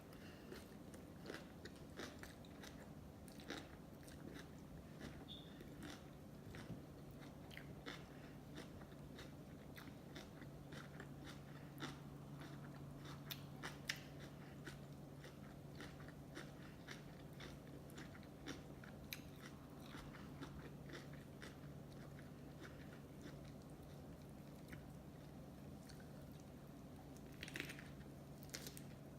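Close-miked chewing of sushi: a steady run of small wet mouth clicks and smacks as a mouthful is chewed. A steady low hum runs underneath and gets a little stronger about ten seconds in.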